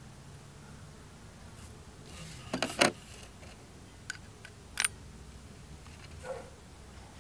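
Brass coins clinking against each other and the rim of a small crucible as they are pushed into it: a quick cluster of three sharp clinks about two and a half seconds in, then two single lighter clinks, the last with a short metallic ring.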